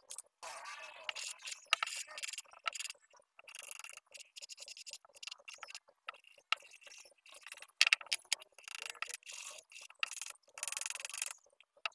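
Sandpaper rubbed by hand over the edges of a wooden push block: short, irregular scratchy strokes, with a few light clicks as the piece is handled.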